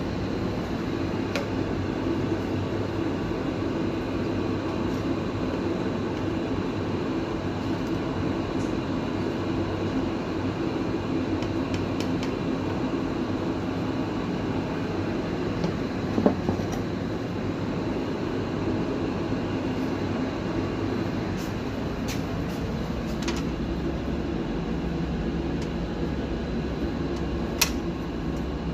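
Window air conditioner running: a steady hum and whir from its fan motor, with a few short ticks scattered through it.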